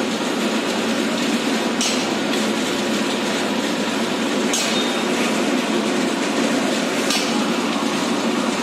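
Hand-tool strikes in manual construction work: three sharp knocks about two and a half seconds apart, over a steady rushing background noise.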